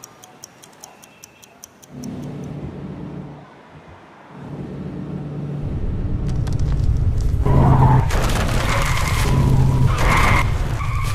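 A wall clock ticking evenly for about two seconds, then a deep earthquake rumble that swells steadily louder. Harsh screeching noise from a skidding car comes in over the rumble in the last few seconds.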